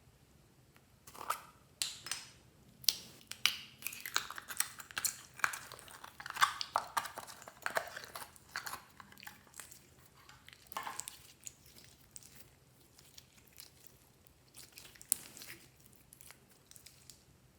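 Clear slime being squished and mixed by hand, a run of sticky, wet clicks and pops. The sounds come thick for most of the first ten seconds, thin out, and return briefly near the end.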